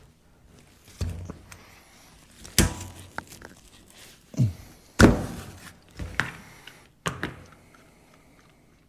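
A series of heavy thunks and knocks, about six of them, as the diesel injection pump and tools are handled on a workbench that has no vise. The loudest knock comes about five seconds in.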